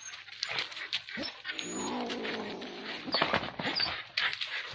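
A dog fighting a wild cat: rough growling for about a second and a half in the middle, amid scuffling knocks.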